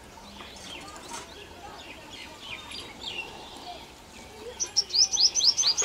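Purple sunbird calling: faint scattered chirps, then near the end a loud, rapid run of sharp rising notes, about seven a second.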